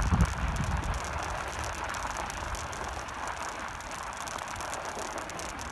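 Studded fat-bike tyres rolling over packed snow and ice: steady crunching with fine crackling. Wind buffets the microphone with a low rumble at the start, fading about half a second in.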